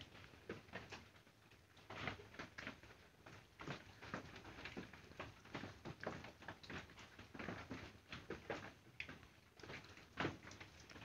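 Faint, irregular taps and clicks, a few a second, from typing on a smartphone's on-screen keyboard.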